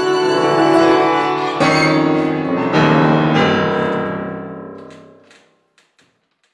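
Grand piano playing the closing chords of a violin-and-piano piece: two more chords struck about a second and a half and three seconds in, the last one ringing and dying away over about two seconds to silence.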